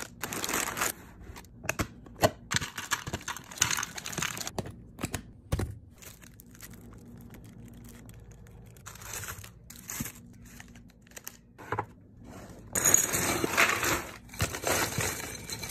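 Crinkly food packaging being handled: plastic snack bags and foil packets rustling and crinkling in irregular bursts, loudest near the end as a plastic bag is tipped out.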